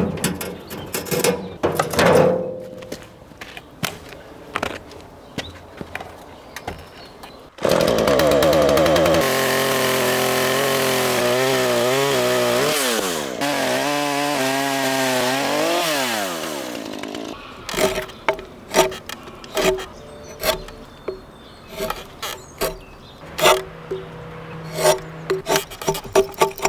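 Wood knocking for the first several seconds. A small petrol engine then starts running loudly for about nine seconds, its pitch dipping and recovering twice as it labours in the cut. Rhythmic music with plucked notes follows.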